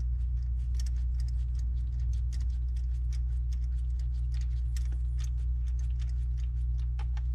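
Hand ratchet clicking in quick irregular runs as a socket turns in an intake manifold bolt, over a steady low hum.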